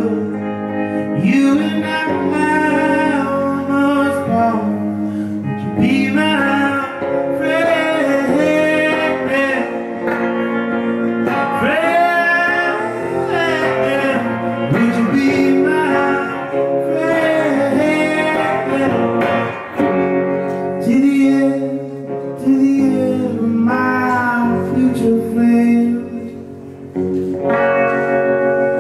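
Acoustic guitar playing with a man's singing voice gliding over it in long held notes.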